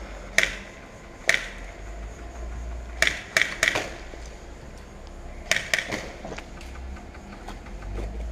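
Airsoft gun shots as sharp single cracks: two about a second apart, then a quick run of four about three seconds in and three more about five and a half seconds in.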